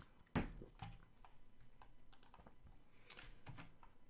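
Faint typing on a computer keyboard with clicks, after a single louder knock about a third of a second in.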